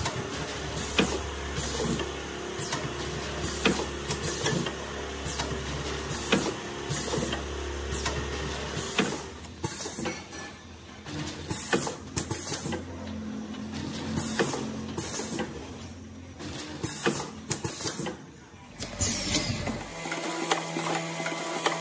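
Multi-lane sachet packing machine running, cycling with a clack and a short falling high whistle about once a second over a low steady hum; the strokes thin out in the second half. Near the end, background music takes over.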